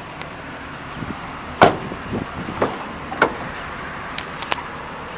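The side swing-out door of a Chevrolet Express van being handled and opened: a loud latch clunk about one and a half seconds in, followed by several lighter knocks and clicks.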